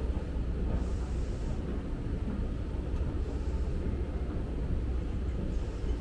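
Steady low rumble of an escalator running, heard while riding it down, over the hum of a large concourse.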